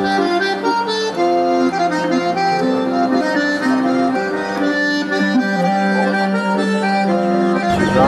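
Accordion music: a tune of short stepping notes played over a steady held bass note. A low rumble comes in near the end.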